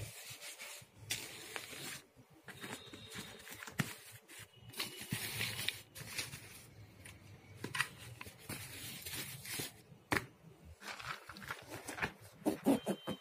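Camera gear being handled and packed into a padded camera backpack: irregular fabric rustling and scraping, soft knocks of the camera and lenses, and a few short ripping sounds.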